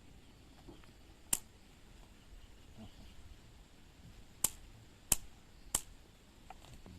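Four sharp clicks spread over a few seconds, against a quiet background hiss.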